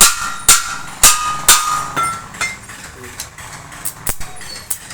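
Hammer blows on metal, about two a second, each with a short ringing tone; after about two and a half seconds they give way to a few lighter taps.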